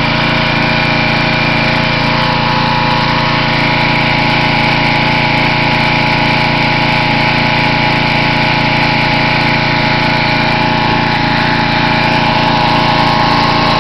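Simoniz 2350 PSI pressure washer's small gasoline engine running steadily at an even speed.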